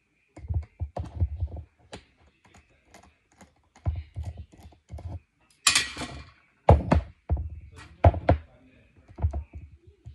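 Irregular clicks and knocks of a T8 Torx bit on a socket and extension working on the handle of a Bushmaster out-the-front knife as its tiny case screws are backed out, with the knife and tool bumping the workbench. About six seconds in there is one brief, sharp metallic rattle.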